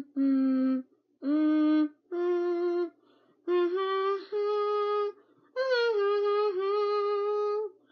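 A woman singing unaccompanied: a wordless line of six held notes, separated by short pauses, climbing in pitch, the last one held about two seconds.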